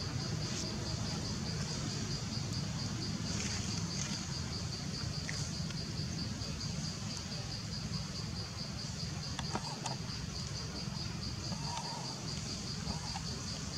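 An insect, cricket-like, chirping steadily: a high, evenly pulsed note of about four or five pulses a second that keeps on, over a constant low rumble.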